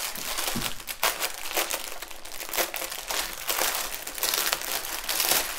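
Clear plastic wrapping crinkling continuously as hands handle and unwrap a bundle of small plastic bags of diamond-painting drills.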